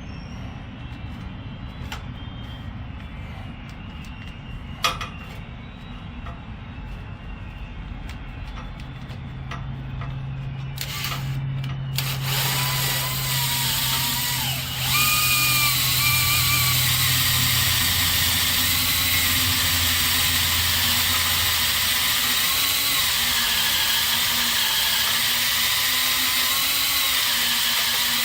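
Power drill boring out a steel rivet head on a truck frame. A lower hum with a few clicks at first, then from about twelve seconds in the bit cuts under load: a loud, steady grinding with a wavering whine.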